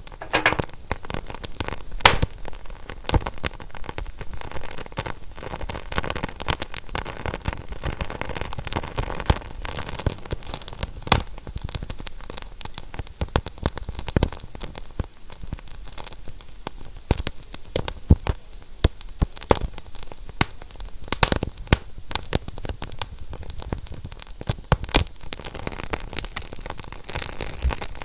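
Fire crackling, with many irregular sharp snaps and pops over a steady hiss.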